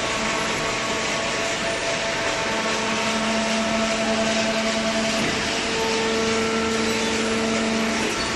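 Hydraulic waste paper baler running: a steady machine hum with a few fixed tones over a rushing noise, the lower tones growing stronger a few seconds in.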